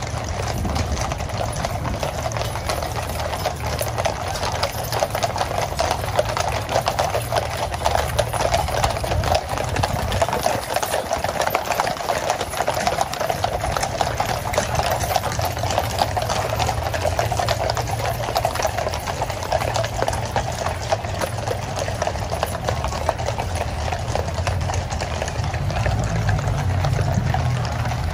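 Many shod horses of a mounted Household Cavalry column walking on a tarmac road: a continuous, overlapping clip-clop of hooves.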